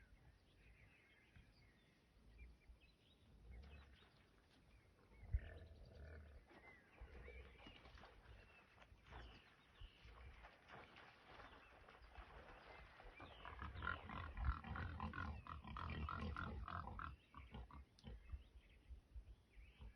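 Wild boar grunting, faint at first, then a louder run of quick repeated grunts past the middle. A single sharp knock sounds about five seconds in.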